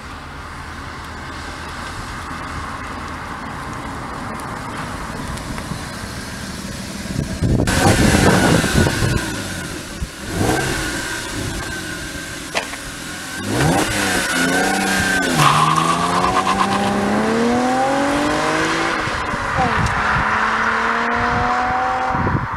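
Audi A6 (C6) 2.4-litre V6 engine on its stock exhaust. At first a faint, steady engine note grows slowly louder as the car approaches. Later the car accelerates hard away, the engine pitch rising in several long sweeps with short breaks between them as the manual gearbox shifts up.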